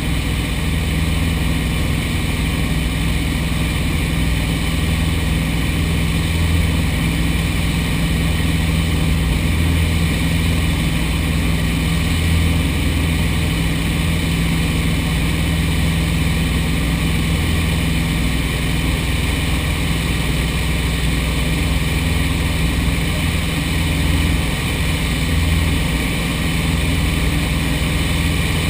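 Light airplane's piston engine and propeller running in a steady drone, with a constant low hum and an uneven throb beneath it.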